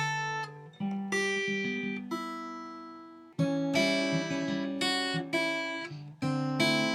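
Acoustic guitar background music: strummed chords that ring and fade, with a short lull about three seconds in before the next strum.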